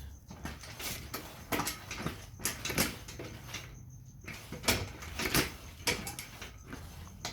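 A series of irregular knocks and clattering scrapes, several sharp hits around the middle, over a faint steady high-pitched hum.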